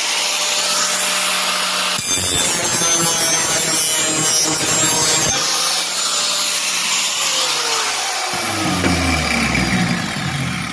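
Electric angle grinder grinding the edge of a steel lawnmower blade to sharpen it, its steady motor whine joined by a harsh rasp of wheel on steel between about two and five seconds in. About seven seconds in it is switched off and its pitch falls as it winds down.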